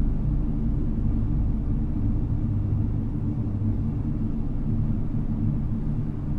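Ambient music: a low, steady drone of sustained deep tones with no beat or rhythm.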